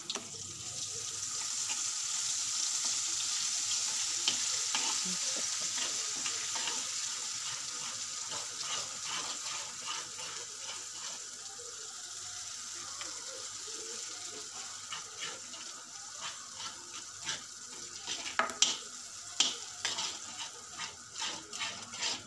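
Garlic paste sizzling in hot oil in a pot: a steady hiss that swells over the first few seconds, then settles. Later, a spoon stirring and scraping against the pot adds a run of clicks, thickest near the end.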